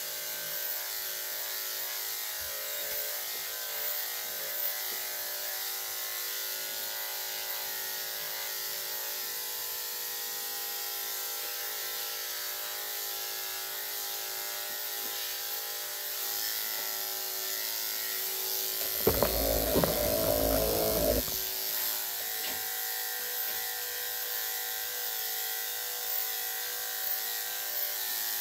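Electric dog grooming clippers fitted with a #3¾ blade, running steadily as they shave the dog's coat. About two-thirds of the way through, a louder noise lasts about two seconds.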